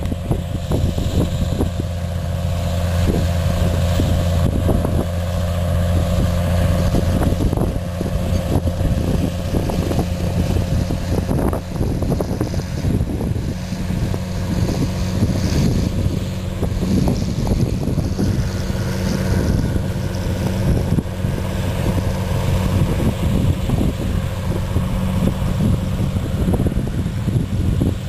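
Early John Deere tractor's two-cylinder engine running steadily.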